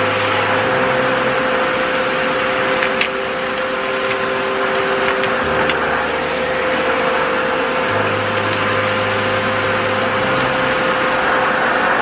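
Kärcher WD3 wet and dry vacuum cleaner running steadily: a constant rushing of air with a steady motor tone, and a brief click about three seconds in.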